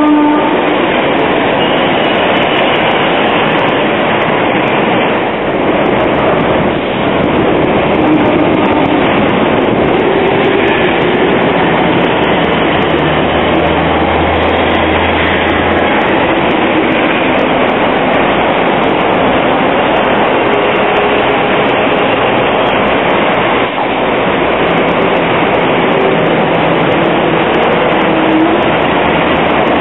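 Steady running noise of a Hong Kong double-deck electric tram heard from on board: steel wheels rolling on the narrow-gauge rails, with city traffic around it. A low hum comes in for a few seconds midway.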